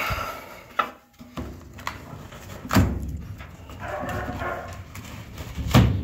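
Sheet-metal furnace filter rack and a cardboard-framed pleated filter being handled: a few heavy thuds, the loudest about three seconds in and just before the end, with scraping as the filter is worked out of its slot.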